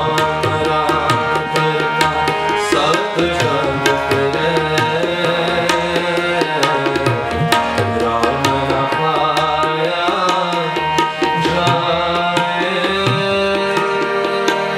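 Tabla played in a rhythm of quick strokes over held melodic notes: instrumental accompaniment of a Sikh shabad (kirtan).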